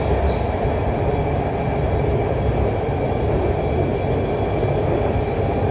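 Orange Line metro train running at speed, heard from inside the carriage: a steady low rumble with a few faint, steady high tones above it.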